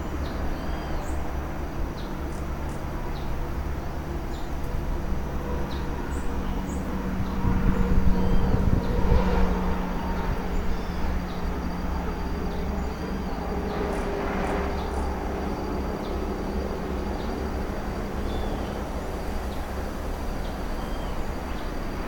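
Forest ambience: short bird chirps scattered throughout, over a faint steady high tone and a constant low rumble. The rumble swells for a few seconds near the middle.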